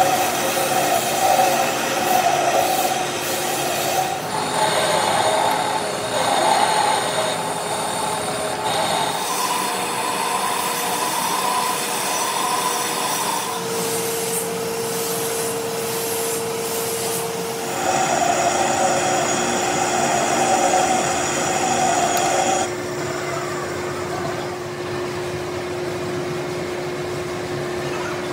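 Vertical lathe turning a grey cast iron V-belt pulley: the machine's steady hum under the rasping hiss of the cutting tool shaving the cast iron. The sound shifts abruptly several times.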